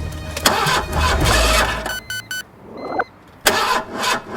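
A car engine starting and revving, with a low rumble for about two seconds. Then come three quick electronic beeps and a sharp knock near the end.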